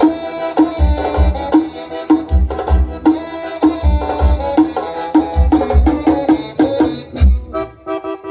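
Music with heavy, regular bass thumps and a melody over them, played through a newly installed car sound system with subwoofer, mid-bass speakers and horn tweeter. The bass drops out briefly near the end.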